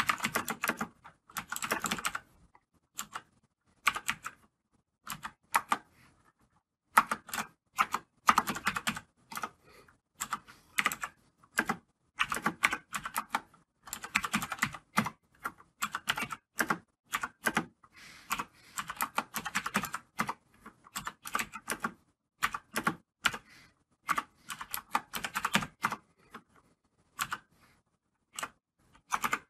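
Computer keyboard being typed on in quick bursts of keystrokes, with short pauses between the bursts.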